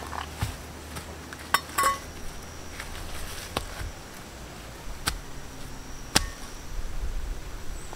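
Stones knocking and clacking against each other as they are picked up and set down on the ground by hand, a handful of sharp, irregular knocks.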